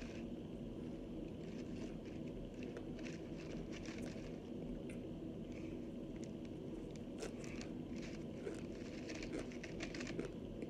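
Close-up crunching and chewing of dried cornstarch-and-water chunks: a run of small, crisp crackles and crunches, thicker in the second half.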